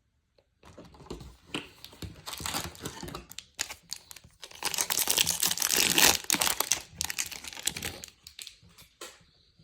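A baseball card pack's wrapper being torn open and crinkled, with the cards handled. The crackling is densest and loudest in the middle, fading toward the end.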